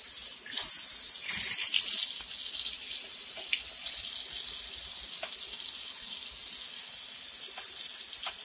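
Kitchen sink faucet running water into the sink, gushing louder for the first couple of seconds and then settling to a steady stream.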